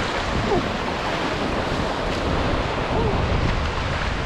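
Breaking surf and whitewater rushing around a kayak riding the shore break in, with heavy wind buffeting on the microphone.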